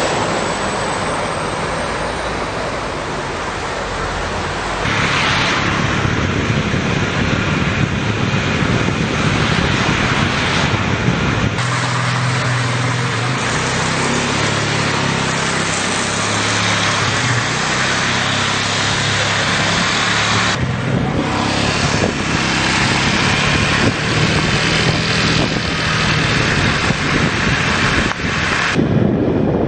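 Heavy rain laden with volcanic ash and small stones falling on cars and a street, a dense steady rush mixed with traffic noise. It changes abruptly several times.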